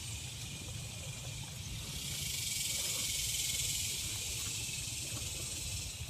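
Cicadas droning in a steady, high-pitched chorus that swells louder about two seconds in, over a low rumble.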